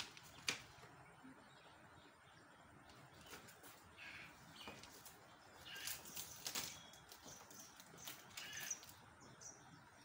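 Faint rustling and scraping of a package being handled and opened by hand, with a sharp click about half a second in.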